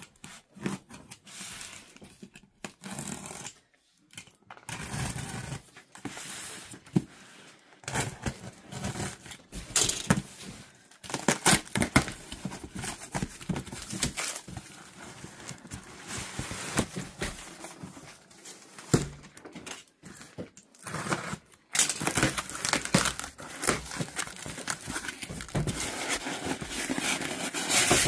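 A cardboard shipping box being unpacked by hand: a box cutter slicing the packing tape, cardboard flaps scraping and tearing, and packing material rustling and crinkling, in irregular bursts that grow busier near the end.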